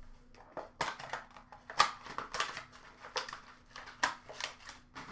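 Plastic card packaging being handled off to the side, crinkling and rustling in a quick irregular run of short bursts.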